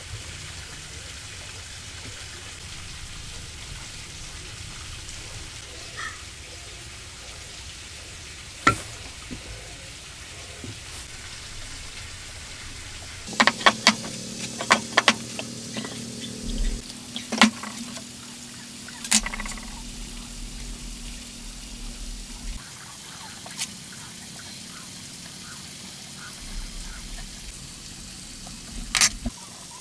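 Scattered sharp knocks and clicks over a steady background noise. There is a lone knock early on, then a burst of several knocks in quick succession past the middle, and a last sharp one near the end.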